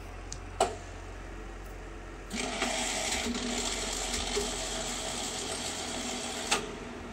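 TOS-Kuřim FNK 25 milling machine's longitudinal table power feed running at its maximum feed rate: a steady mechanical whir of the feed gearing starts about two seconds in and runs about four seconds, then stops on a sharp clunk. A sharp click comes just under a second in, and a low machine hum runs underneath.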